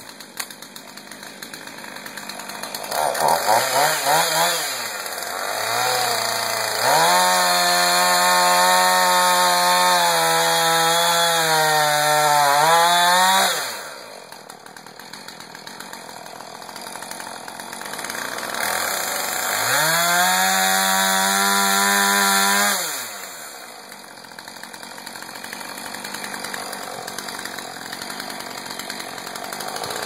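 Husqvarna two-stroke chainsaw starting up and idling, then revved high and held at full throttle twice: for about six seconds from about seven seconds in, and for about four seconds from about nineteen seconds in. It drops back to a lower idle after each.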